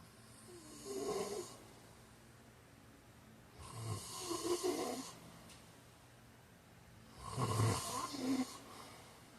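A man snoring: three snores about three and a half seconds apart, each lasting one to one and a half seconds.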